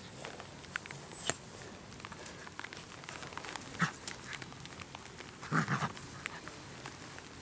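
A young German Shepherd puppy mouthing and tugging a fluffy toy, giving a few short dog noises over scattered small clicks and rustles. The loudest cluster of noises comes a little after halfway.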